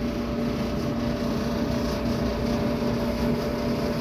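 Duet electric dryer running, its blower and drum making a steady hum over a rush of air from the disconnected exhaust vent.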